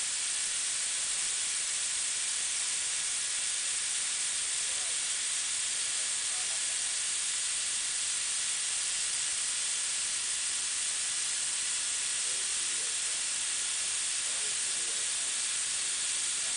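CNC profile grinder's abrasive wheel grinding grooves into a rubber roller, a steady even hiss.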